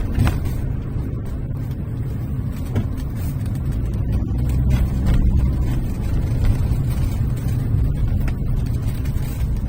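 Car driving at low speed: a steady low engine and road rumble that swells slightly and eases off, with a few faint ticks.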